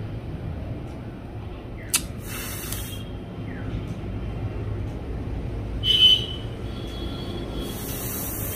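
Steady low electrical hum of a repair bench, with a sharp click about two seconds in, a short hiss just after it, a brief high tone about six seconds in, and another hiss near the end.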